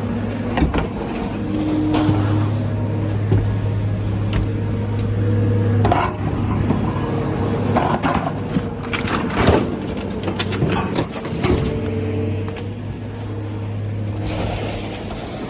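An engine running steadily with a low hum, with scattered clanks and knocks of scrap metal being handled.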